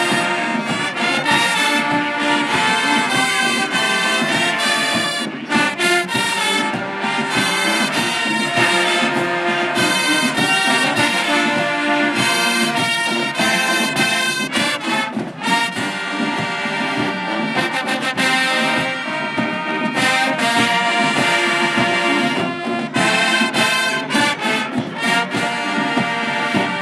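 High school marching band playing a loud, continuous brass number: massed trumpets and trombones over drums keeping a steady beat.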